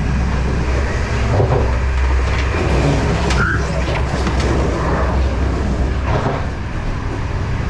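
Running noise of a moving ICRm passenger coach heard in the vestibule between coaches: a loud, steady low rumble from the wheels and gangway. A few light clicks come near the middle as the connecting door is handled, and the rumble eases slightly about six seconds in.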